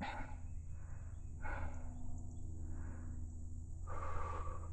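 A person breathing hard, several deep, audible breaths about one a second with a faint voiced exhale near the end: a hunter's excited breathing just after shooting a turkey.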